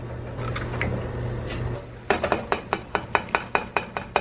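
Eggs in a non-stick skillet of bacon grease, then scrambled with a plastic spatula that knocks against the pan in quick strokes, about six a second, from about halfway through.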